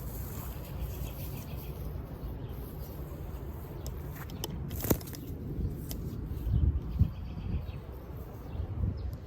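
Outdoor ambience with faint bird chirps over a steady low rumble on the microphone, broken by a sharp click about five seconds in and a few soft thumps a little later.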